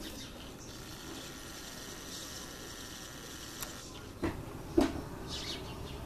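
Steady outdoor background hiss with a few faint, short, high chirps. Two knocks a little past four seconds in, the second the louder, as the handheld camera is moved.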